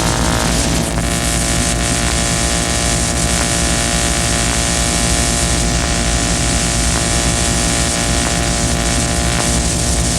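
Harsh noise music: a loud, unbroken wall of hiss with a dense stack of steady droning tones and hum beneath it, holding steady throughout.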